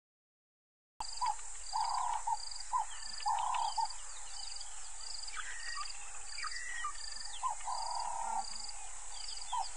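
Bush ambience at a waterhole, cutting in about a second in: a high, continuous insect drone, another insect pulsing evenly about twice a second, and birds chirping and calling over it.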